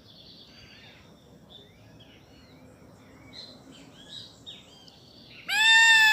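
Songbirds chirping faintly and intermittently, then near the end a rooster starts one loud, long crow, held level and dropping in pitch as it ends.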